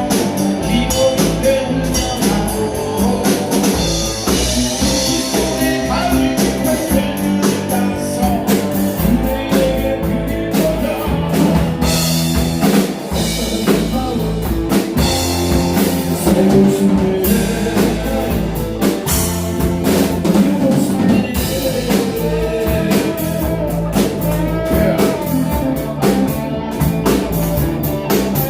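Band music with guitar and drum kit playing a steady beat.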